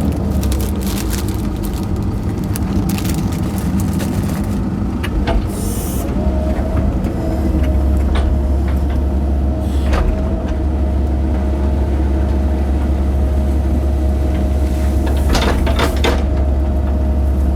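Mini excavator's diesel engine running steadily under load, with a steady whine coming in about six seconds in and holding. Scattered knocks and scrapes as the bucket digs through dirt and trash.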